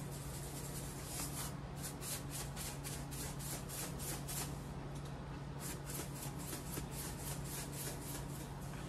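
Salt canister shaken over a raw fish: quick, repeated rattling shakes, about three a second in runs with short pauses, with little salt coming out through its narrow slit spout. A steady low hum runs underneath.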